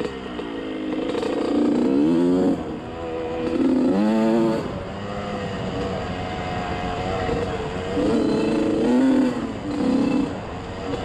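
Small engine of an off-road trail vehicle running under way, revving up and easing off several times as the rider works the throttle.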